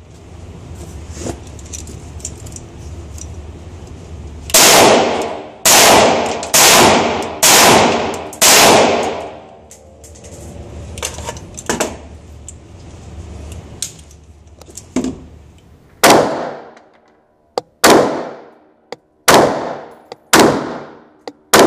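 Short-barreled AR-style rifle fired at an indoor range, each shot ringing off the concrete with a long echo. A string of five shots comes about a second apart, then after a pause a second string of shots about a second apart near the end.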